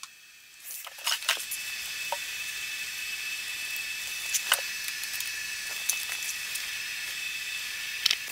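A steady hiss with a faint high whine in it, starting about a second in and cutting off near the end, with a few light clicks and knocks.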